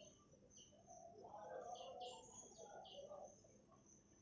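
Near silence with faint birds chirping in the background in short, repeated high notes.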